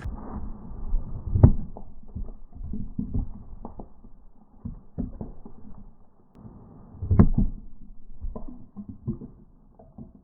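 Muffled, irregular knocks and thumps, the loudest about a second and a half in and again about seven seconds in.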